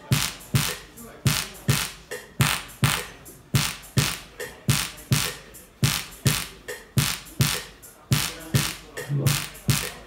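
A drum-machine beat at about two hits a second drives a dual-resonant solid-state Tesla coil (DRSSTC), which gives a sharp crackling zap with each kick. A few low keyboard notes come in near the end.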